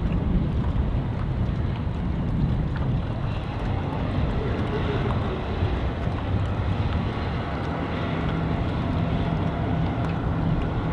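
A boat engine running at low speed, steady with no revving, under wind buffeting the microphone.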